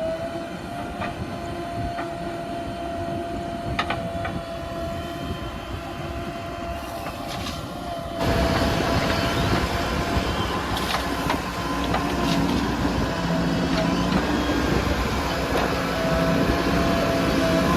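JCB 3DX backhoe loader's diesel engine and hydraulics working, a steady drone with a high held whine over it; about eight seconds in the engine gets louder and heavier as it comes under load.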